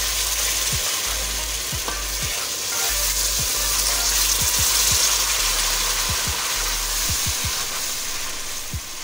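Sugar, ghee and milk sizzling steadily in a steel pan as a silicone spatula stirs them: the sugar melting into syrup (chashni) for zarda.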